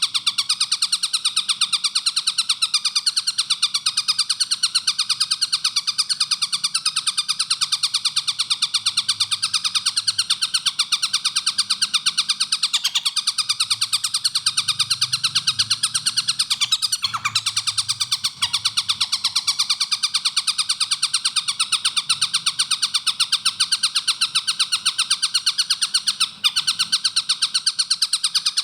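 Collared kingfisher (tengkek buto) calling in a fast, unbroken string of tightly spaced notes, a rapid continuous chatter.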